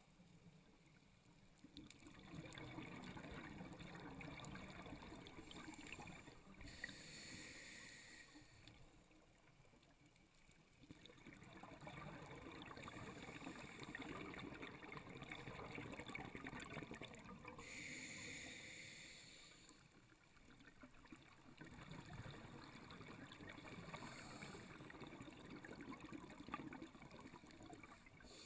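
A scuba diver breathing through a regulator underwater: about three breath cycles, each a short hiss of inhalation through the regulator and a long crackling burble of exhaled bubbles.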